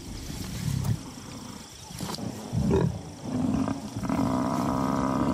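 Animal calls at a lion kill on a buffalo: short low growls, then from about three seconds in a long, steady moaning call.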